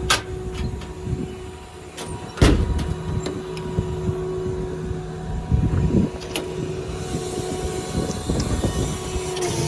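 Steady hum of the service truck's 6.4-liter Power Stroke diesel engine running with the PTO engaged. A sharp knock comes about two and a half seconds in, the loudest sound, with lighter clicks and some handling noise around it.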